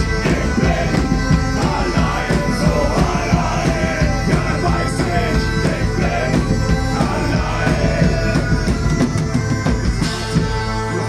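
Medieval-rock band playing live: drums and full band under a sung melody, with some held steady tones.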